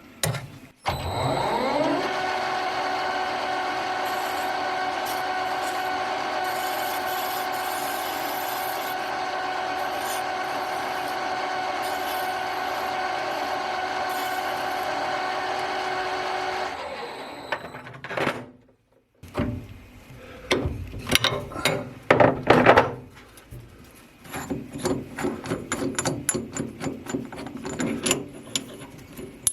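Metal lathe spindle starting up with a rising whine, then running at a steady pitch for about fifteen seconds before winding down. After a short gap comes a run of irregular metallic clinks, clatters and scrapes.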